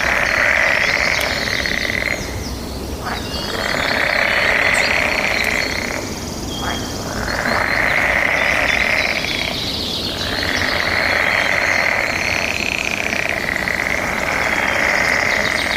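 Forest ambience: a buzzing animal chorus that swells and fades in waves every three to four seconds, with faint bird chirps above it.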